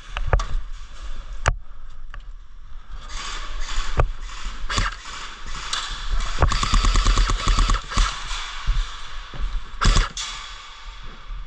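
Airsoft guns firing: scattered single shots, then a rapid full-auto burst lasting about a second and a half about six seconds in, and another loud shot near the end.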